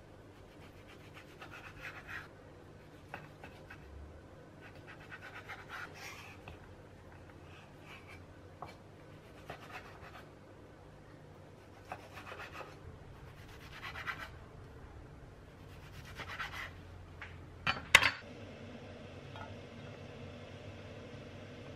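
Cleaver slicing and dicing raw bacon on a wooden cutting board: short groups of blade strokes drawn through the meat, with light taps on the board. Near the end comes a loud sharp clack as the diced bacon goes into the nonstick frying pan, and a steady low hum follows.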